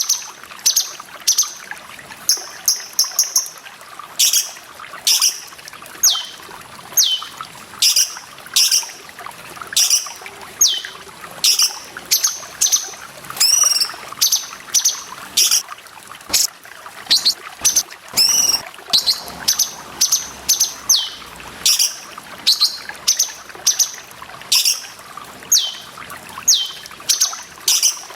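Cucak cungkok calling over and over in short, sharp notes that slide down in pitch, about one to two a second, with a few longer up-and-down notes among them. Steady trickling water runs underneath.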